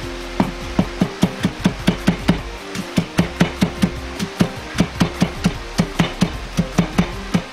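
Chinese cleaver chopping a carrot into thin strips on a plastic cutting board: quick, even knocks of the blade on the board, about four to five a second, with a brief pause about three seconds in.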